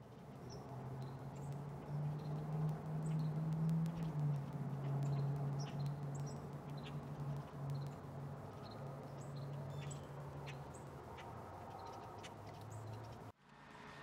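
Low, steady engine hum, most likely the Mustang GT's V8 idling, settling slightly lower in pitch about four seconds in. Birds chirp faintly over it.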